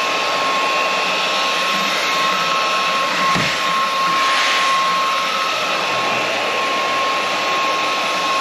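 Inse S610 cordless stick vacuum running steadily while vacuuming the floor: a constant motor whine with a steady high tone, and a brief knock about three seconds in.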